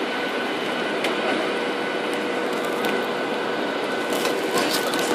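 Steady cabin noise of a Boeing 737 airliner on approach: jet engine and airflow as heard inside the cabin, an even rush with a faint steady hum and a higher whine. A few short clicks sound near the end.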